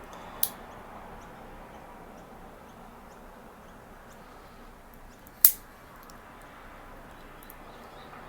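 Metal clicks of a Kobalt 15-in-1 multi-tool's fold-out implements being opened and closed: a sharp click about half a second in and a louder one about five and a half seconds in, with a few faint ticks between.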